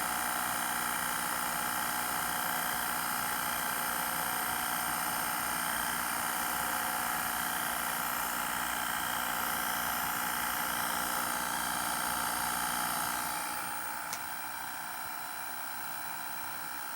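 AV-8750 professional colour video tape recorder running in playback, a steady motor and tape-transport whine made of several high tones over a low hum. About 13 seconds in the whine drops and thins, with a single click a second later.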